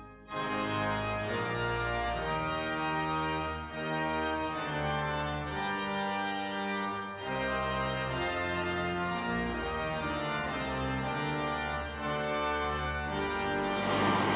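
Organ music playing slow, held chords over a moving bass line. Near the end, the rush of a mountain stream comes in.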